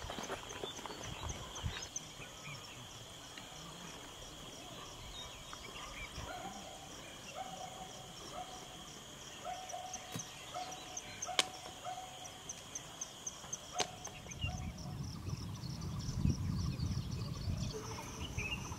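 Outdoor ambience: insects trilling steadily with a fast, high pulsing, and a bird repeating a short, flat call about once a second through the middle stretch. A low rumble comes in near the end, with a few faint clicks scattered through.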